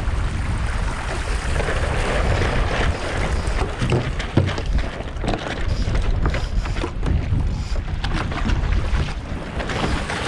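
Gusty wind buffeting the microphone of a deck-mounted camera on a Streaker sailing dinghy, over the rush and splash of water along the hull. Scattered knocks and flutters from the boat and sail as it tacks, the sharpest knock about four seconds in.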